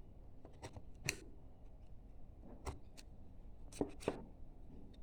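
Carving gouge pushed by hand through softwood, no mallet: several short, sharp slicing clicks as the edge parts the wood fibres, the strongest about a second in and around four seconds in.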